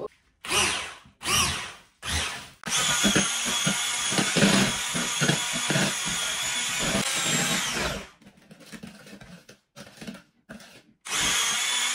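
Electric hand mixer beating butter and sugar in a bowl. It starts in three short bursts, then runs steadily with a whine and an uneven clatter of the beaters for about five seconds before it is switched off.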